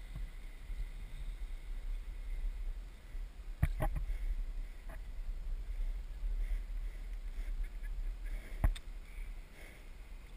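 Wind rumbling steadily on the camera microphone in an open field, with a few sharp knocks against the camera: a double knock a little over three seconds in, a lighter one soon after, and another near the end.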